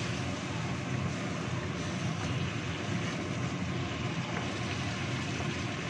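Wok of chicken simmering in sauce over a gas burner: a steady, even bubbling and burner noise, with a faint tick or two from the wooden spatula.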